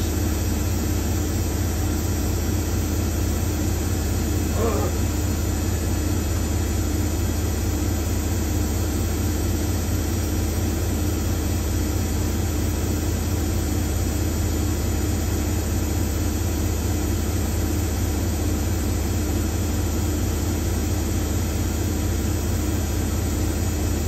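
Hoover Nextra top-loading washing machine spinning, a loud steady deep hum that does not change.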